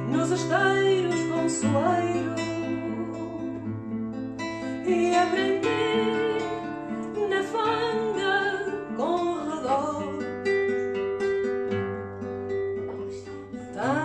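Background music: acoustic guitar with a singing voice carrying a melody over held low notes.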